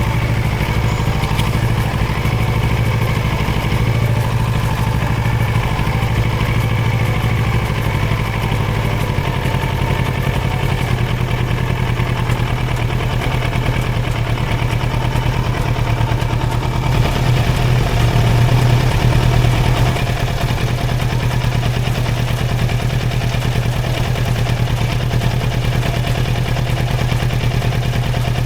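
Kawasaki Versys 650 parallel-twin engine idling steadily after an oil change, rising slightly for a few seconds about two-thirds of the way through.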